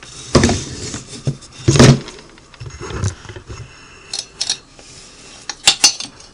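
Knocks and metallic clinks from handling a Singer 401A sewing machine to get at its underside: a scattered series of separate hits, the loudest about two seconds in, and a few sharp clinks near the end.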